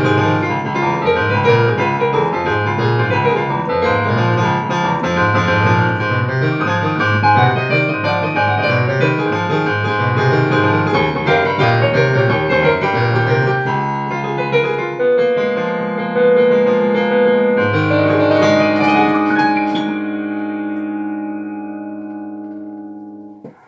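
Piano music: a busy run of notes, then slower held chords from about halfway through, fading out and ending near the end.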